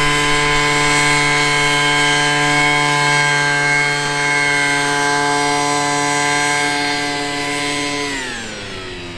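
Gas leaf blower engine and fan driving an RC plane at full throttle on its takeoff run: a loud, steady high-pitched whine. About eight seconds in, the engine is throttled back and the pitch falls away.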